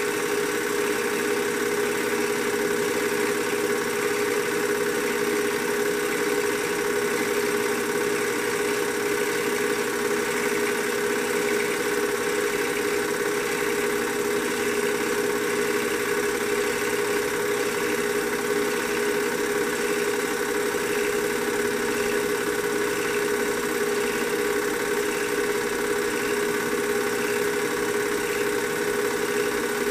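A small motor running with a steady, unchanging hum and a strong fixed tone.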